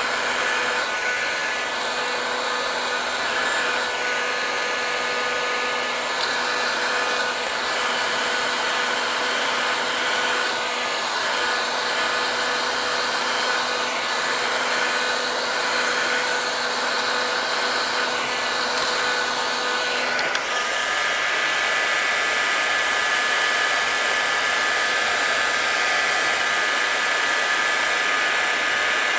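Electric heat gun blowing hot air steadily, used to soften araldite glue under brass inlay. Its fan hum changes pitch about two-thirds of the way through.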